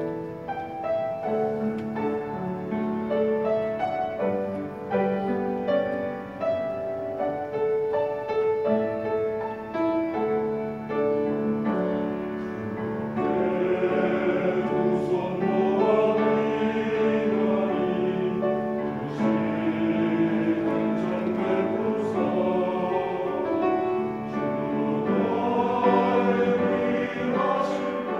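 Mixed church choir singing a hymn with piano accompaniment. The piano plays alone at first, and the choir's voices come in about halfway through.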